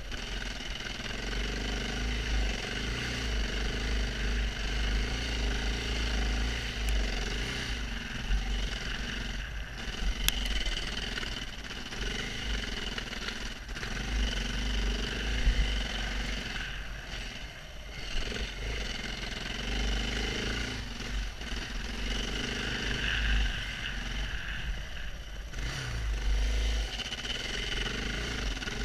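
KTM 690 Enduro R's single-cylinder engine running as the bike is ridden along a dirt trail, the throttle rising and falling, with brief let-offs in the middle and again near the end.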